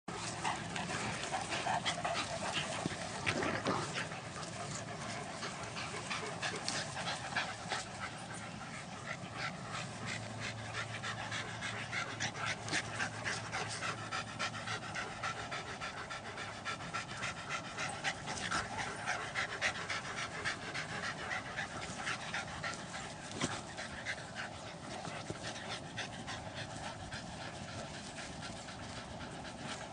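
Two large dogs panting hard while play-fighting, with frequent short clicks and scuffs throughout.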